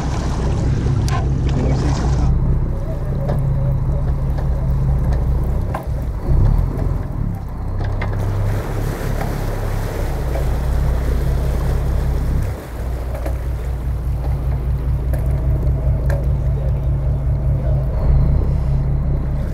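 A fishing boat's engine running steadily with a low rumble, with a few faint knocks over it.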